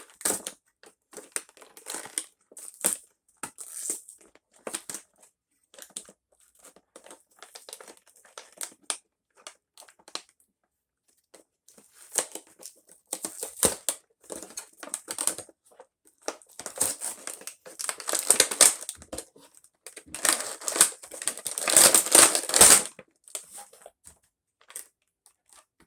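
Action-figure packaging being handled, torn open and crumpled by hand: irregular crinkling and crackling, with louder bouts of crushing in the second half.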